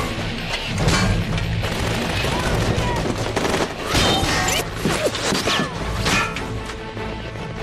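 Action-film battle soundtrack: scattered gunshots and crashing impacts over a steady, low music score.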